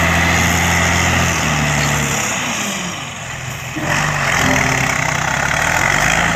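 Diesel engine of a Randon RK 430B dump truck running as its raised body tips out a load of red earth, with the rush of soil sliding off the bed. The engine note changes about two seconds in.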